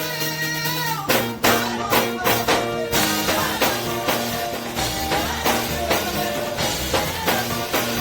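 Live upbeat gospel praise music with a steady drum beat and sung or keyboard melody; a bass line comes in about five seconds in.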